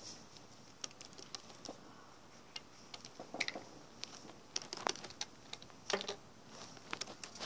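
Faint, irregular clicks and light taps of small plastic toy figures and props being handled and set down on a carpeted surface.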